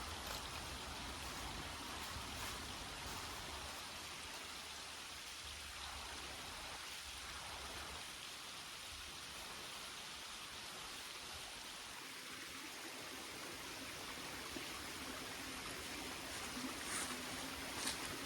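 Mountain stream water running steadily, with a couple of faint clicks near the end.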